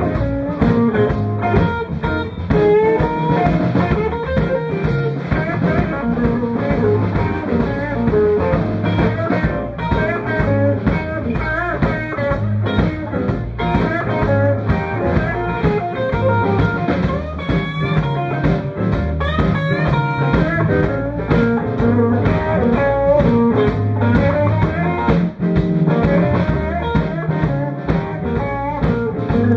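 Live blues band playing: an electric guitar lead with bent notes over a drum kit and bass guitar.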